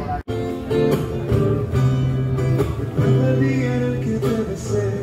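Music: an acoustic guitar strummed with a voice singing, after a momentary gap just after the start.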